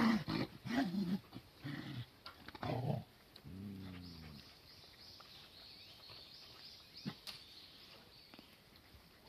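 Young Cardigan Welsh Corgis vocalising as they play: a run of short growly dog noises in the first three seconds, then one longer wavering growl about four seconds in, after which the dogs go quieter.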